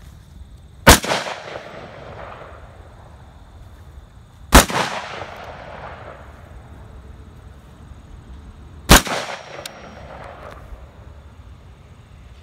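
Three single rifle shots from an AR-15 with a piston upper, about four seconds apart, each a sharp crack followed by a short echo.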